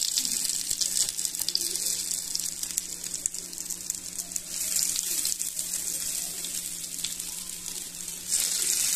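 Mutton seekh kebabs sizzling and crackling in hot coconut oil on a non-stick tawa, the sizzle swelling louder near the end as another kebab is turned over into the oil.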